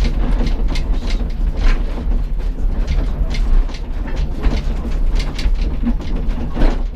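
Heidelberg Bergbahn funicular's cable haulage machinery running: a steady low rumble with irregular mechanical clattering and clicks.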